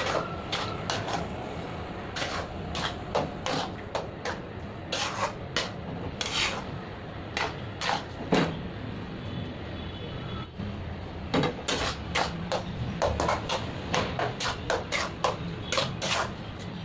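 Metal spoon knocking and scraping against a steel bowl in irregular clicks, at times several a second, as freshly made white butter is pressed and worked in water to wash it.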